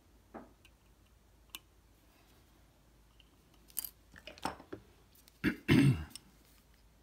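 Small handling noises of tools and parts at a workbench: a few faint clicks, then a run of sharper clicks and scrapes from about four seconds in, and the loudest sound, a short rough thump and rustle, about five and a half seconds in.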